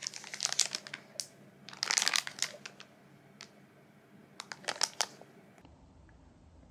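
Clear plastic packaging of a pack of red cedar blocks crinkling as it is handled, in three spells of crackling a couple of seconds apart.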